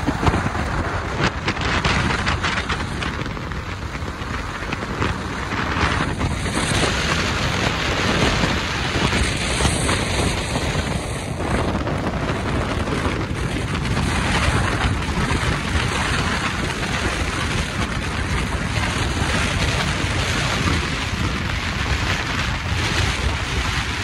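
Wind buffeting the microphone of a moving vehicle over road noise: a steady, loud rushing with uneven gusts throughout.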